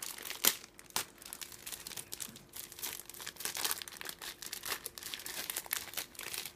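Thin clear plastic bag of small plastic model-kit runners crinkling and crackling as hands open it and handle it, with irregular sharp crackles and the loudest pops about half a second and a second in.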